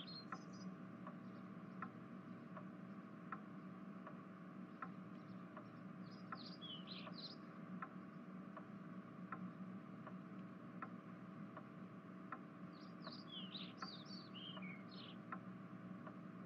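Faint, steady ticking, about four ticks every three seconds, over a low hum, with short bursts of bird chirping about six seconds in and again near the end.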